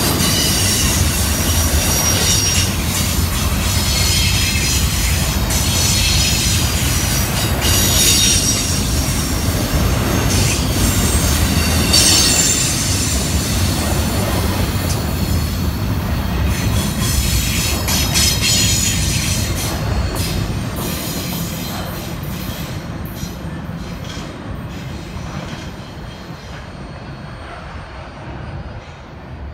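Intermodal double-stack well cars rolling past on curved track: a steady rumble of wheels with squealing at times, fading away from about twenty seconds in as the end of the train moves off.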